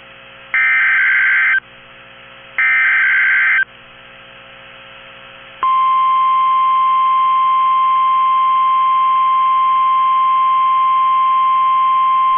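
Emergency Alert System SAME header: two harsh, screeching digital data bursts about a second long, a second apart. About two seconds after the last burst, the NOAA Weather Radio warning alarm tone starts: a loud, steady single-pitch tone that holds on. Together they mark the start of a tornado warning broadcast.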